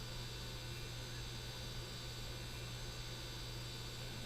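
Steady low electrical hum, with a faint steady high whine above it.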